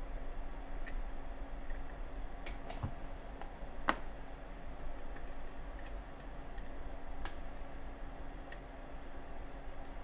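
Faint, irregular metallic clicks and ticks of a lock pick working the pins inside a Nagasawa Kodai KCY-31 lock cylinder, the sharpest about four seconds in.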